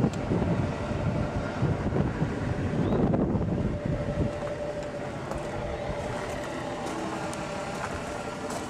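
Wind rumbling and buffeting on the microphone, easing after about four seconds to a steady low mechanical hum with a faint steady whine.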